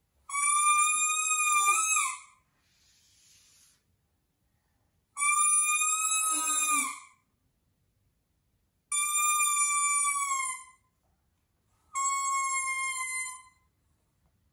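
Baby's plastic toy trumpet blown in four long toots, each about two seconds, on one steady reedy note that sags slightly as the breath runs out.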